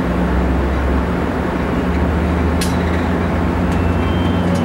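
Amtrak Pacific Surfliner train at the platform, starting to pull away: a steady low hum from its diesel and onboard equipment, the lowest tone rising a little about a second in. A single sharp click comes a little past halfway.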